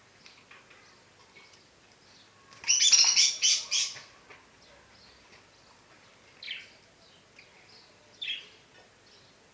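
Pet budgerigars chirping softly, with a loud burst of harsh squabbling calls about three seconds in, then two shorter sharp calls later.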